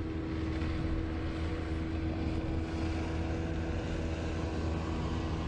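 Steady motor hum with a held tone above it that fades near the end.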